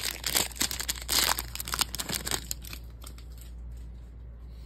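Silver foil wrapper of a Topps baseball card pack crinkling and tearing as it is ripped open by hand. The crackles are sharp and loud for the first two and a half seconds, then die down.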